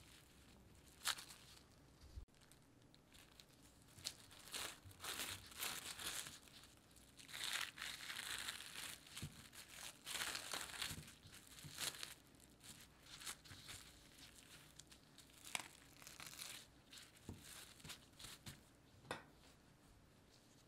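Plastic cling wrap crinkling and crackling as gloved hands peel it off a log of cookie dough, in a run of short crackles that is thickest in the middle.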